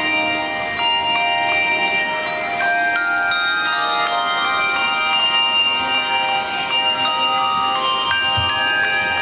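Handbell choir playing a piece: handbells struck several times a second, their clear notes ringing on and overlapping into chords.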